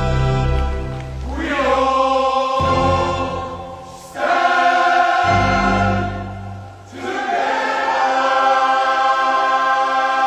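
Men's choir singing long held chords that change every few seconds, with low bass notes under the first few seconds.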